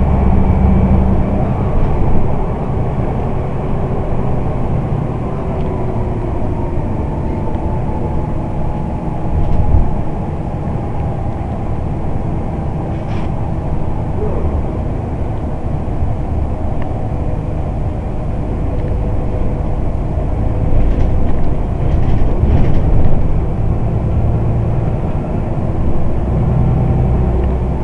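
Scania OmniDekka double-decker bus's engine running steadily under way, with a low drone whose pitch shifts slowly. A few short knocks or rattles come through about halfway and again a few seconds before the end.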